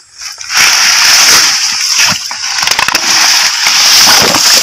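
Grass rustling and muddy water sloshing and crackling as a white PVC-pipe eel trap is worked loose and pulled up out of the swamp; the loud, noisy rustling starts about half a second in.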